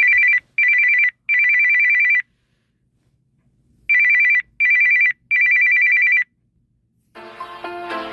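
Samsung phone ringtone in the style of an old telephone bell: a high trilling electronic ring sounding in a short-short-long pattern, twice, with a pause between. A different ringtone tune starts near the end.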